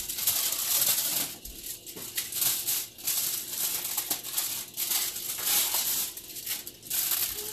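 Aluminium foil crinkling and rustling in the hands in irregular bursts as it is shaped into a small cup.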